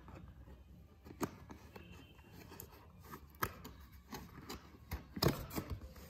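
Fingers prying open the tucked end flap of a cardboard retail box: scattered sharp cardboard clicks and taps, the loudest about five seconds in.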